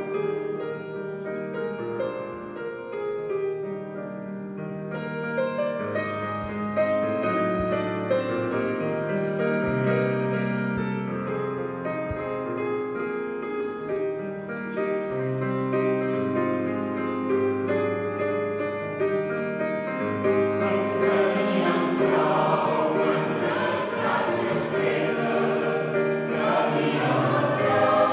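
Mixed choir of women's and men's voices singing with keyboard accompaniment, in sustained held chords; the singing swells louder and fuller about three quarters of the way through.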